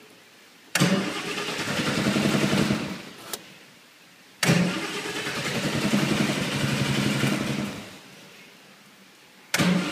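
Triumph TR's four-cylinder engine on rebuilt twin Stromberg CD175 carburettors firing up suddenly, running for a couple of seconds, then dying away. This happens twice, with a small click in between, and the engine fires a third time near the end.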